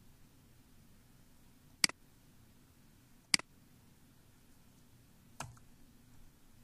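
Three sharp computer mouse clicks, about one and a half and two seconds apart, over faint room hum.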